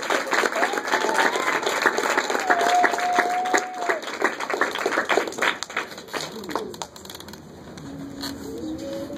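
Congregation applauding, with a voice calling out in a few held notes over the clapping; the applause thins out and dies away about six seconds in, and a low voice follows near the end.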